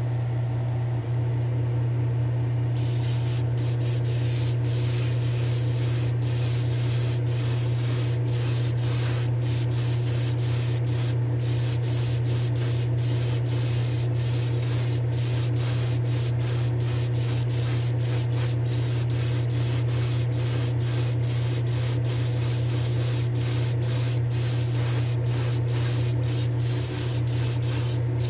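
Airbrush spraying clear coat in a steady hiss, cut by many short breaks as the trigger is let off, starting about three seconds in. Under it runs a steady low hum.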